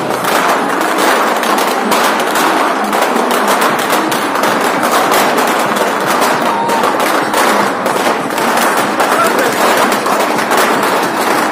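Many balloons popping in rapid, irregular succession as a crowd of children bursts them.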